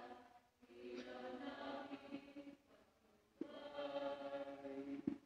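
Faint singing of a hymn in honour of Saint Augustine, in three phrases of held notes with short breaks between them.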